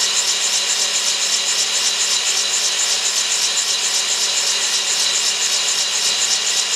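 Van Norman cylinder boring bar running under power, its cutter taking the first boring pass in a Yamaha 701 cylinder. It makes a steady high hiss of cutting over a steady low hum.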